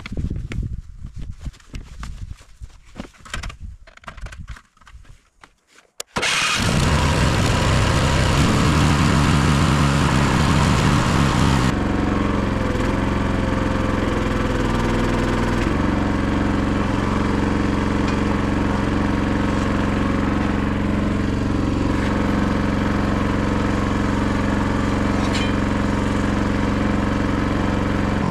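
A few seconds of clatter and knocks, then the small engine of a homemade hydraulic log splitter's power pack starts suddenly about six seconds in. It runs fast at first and, about twelve seconds in, drops back a little and settles into a steady run.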